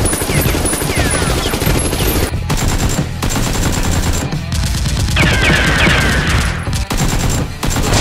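Dubbed-in automatic gunfire sound effects, rapid continuous shots like a machine gun, with several falling whistling sweeps around the middle.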